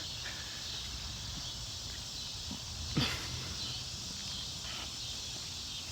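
Outdoor evening ambience: a steady high insect hum over a low rumble of wind or handling on the microphone, with one short faint falling call about three seconds in.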